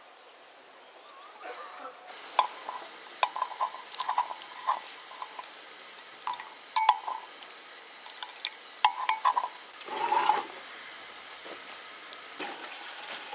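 Metal spoon stirring melted chocolate in a double boiler, clinking and tapping against the bowl in quick, irregular strikes, with a short scraping rush near the end.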